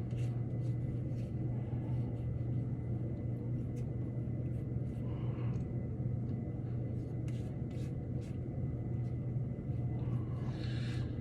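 A steady low hum with scattered light clicks and taps throughout, and a brief rustle near the end.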